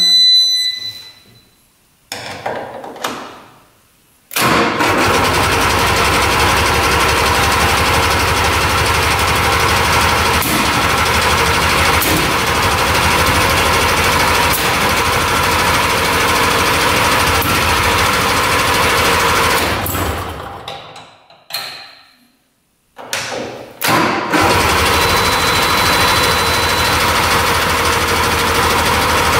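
400cc two-stroke engine of a 1970s mini off-road tank, started on choke after a carburetor clean. After a couple of short tries it catches about four seconds in and runs steadily with a rapid firing beat. It dies away about twenty seconds in, then starts again and runs to the end.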